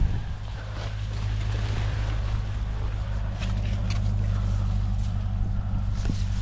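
A steady low hum like a running engine, with dry corn stalks and leaves rustling and a few footsteps as someone moves down a cornfield row.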